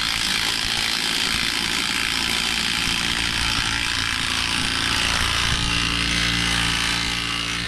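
Cordless DeWalt impact wrench running steadily on the bolt of a hub-bearing press tool, drawing the rear hub into a new wheel bearing. The level dips slightly near the end.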